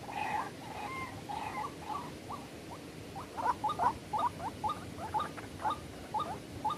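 White-breasted waterhen (ruak-ruak) calling: a run of short, repeated notes that come faster and louder from about three seconds in.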